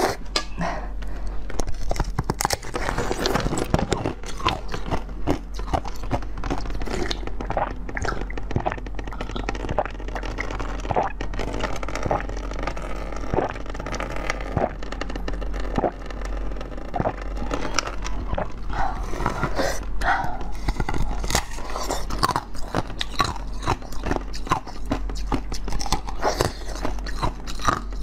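Biting and chewing a block of frozen green ice set with basil seeds, with dense sharp cracks and crunches all the way through.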